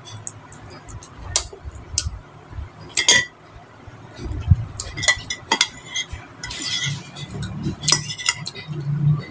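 Eating sounds: chewing and lip smacks from a mouthful of food, with a metal spoon clinking and scraping against a ceramic bowl, the clinks coming thicker in the second half.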